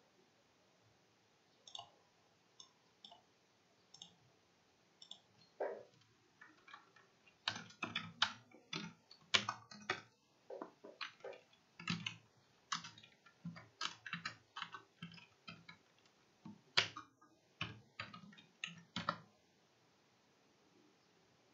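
Typing on a computer keyboard: a few scattered keystrokes, then a run of quick key clicks from about seven seconds in that stops shortly before the end.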